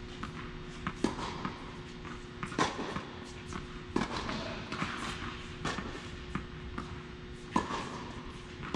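A tennis rally: a ball struck hard by rackets five times, every one and a half to two seconds, with lighter taps between the hits.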